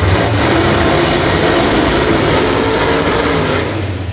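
Drag-race street car's engine at full throttle during a pass, a loud steady note that drops away near the end.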